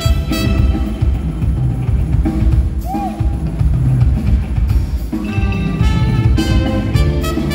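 Live band playing: the drum kit and bass keep the groove going while the melody instruments drop out, then come back in about five seconds in.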